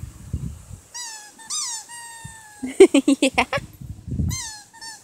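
Dog chewing a plush squeaky bone toy, setting off its squeaker over and over: several high-pitched squeaks, some dipping in pitch, and a quick run of short, lower squeaks near the middle.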